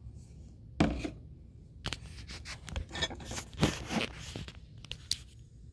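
Handling noise as the camera is picked up and moved: a sharp knock about a second in, then a run of irregular rubbing and scraping clicks against the microphone.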